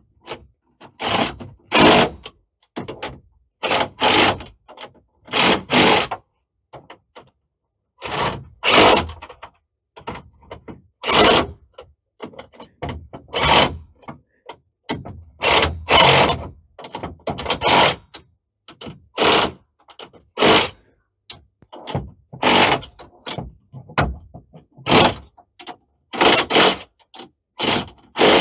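Cordless impact driver run in about twenty short bursts, often in pairs, a second or two apart, working the mounting bolts of an upper door to take out a spacer.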